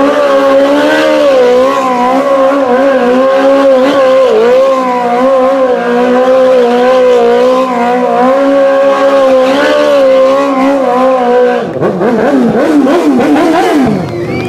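Sport quad bike spinning donuts on tarmac, its engine held at high revs while the rear tyres squeal, making a loud, steady, wavering howl. About twelve seconds in the pitch swoops down and up, then the sound falls away near the end.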